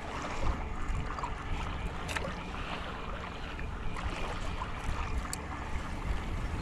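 Water sloshing and splashing along the hull of a moving kayak on choppy water, with wind rumbling on the microphone and a few faint ticks.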